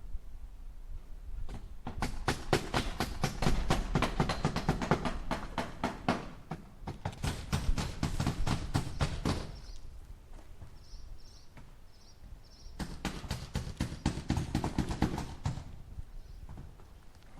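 Hammer rapidly striking nails into wood, several blows a second, in a long run of about eight seconds, then a pause, then a shorter run of about three seconds.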